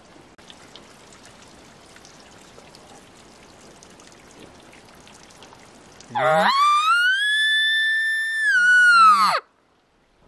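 Bull elk bugling: a low start climbs quickly into a long, high whistle, held for about two seconds, then dips and falls away, with a low grunt underneath near the end. It begins about six seconds in and stops abruptly.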